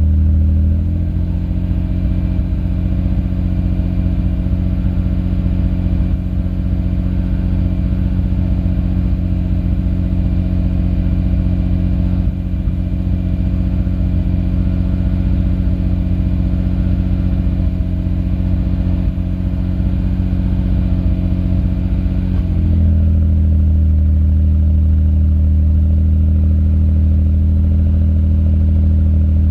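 Nissan Skyline R33 GT-R's RB26DETT twin-turbo straight-six idling at the exhaust tip. It is running evenly with no stumbling after sitting unused for a long time. The idle speed steps up slightly about a second in, holds steady, and drops back down about 22 seconds in.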